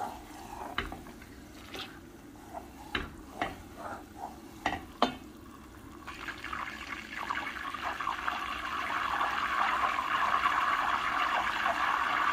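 A wooden spatula stirs melted butter in a steel pot, with scattered knocks and scrapes against the pot for about the first six seconds. Then comes a steady bubbling sizzle of the butter simmering as it clarifies into ghee, growing slightly louder toward the end.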